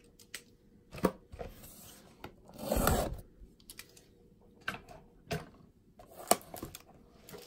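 A cardboard blaster box of trading cards being picked up and handled: a few sharp taps and knocks, with a short rustle about three seconds in.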